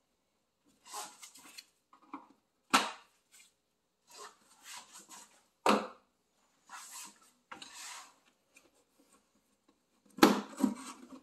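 Clips on a BMW 750Li's plastic air filter housing being undone by hand: three sharp snaps, about three, six and ten seconds in, with plastic rubbing and handling noise between them.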